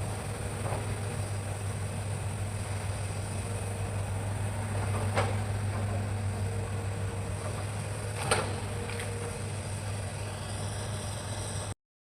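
Hitachi excavator's diesel engine running steadily with a low hum, with two sharp knocks about five and eight seconds in. The sound cuts off abruptly near the end.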